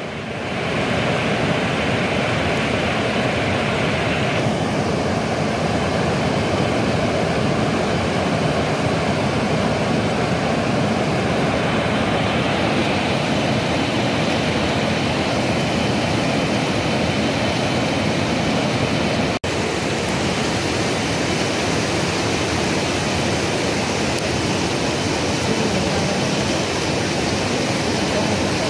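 Steady rush of a swollen river in spate: a dense, even noise of fast-flowing water, broken by a split-second dropout about two-thirds of the way through.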